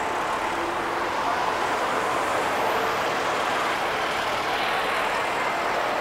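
Steady road traffic noise of cars, buses and trucks, with the last faint ring of a clock-tower bell chime dying away about a second in.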